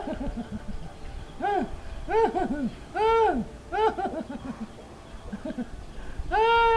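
Domestic tabby cat giving a series of short meows, each rising then falling in pitch, some in quick pairs, with a longer meow starting near the end, as it is scratched at the base of its tail.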